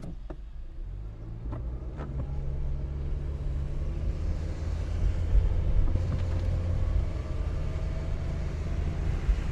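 Car driving in the rain: a steady low engine and road rumble that grows louder over the first few seconds, with a faint hiss of rain and tyre spray. A few sharp clicks come in the first two seconds.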